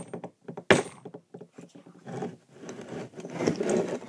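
Hammer striking a crystal-bearing rock: one sharp crack right at the start and another about a second in. Then comes a couple of seconds of scraping and rubbing noise.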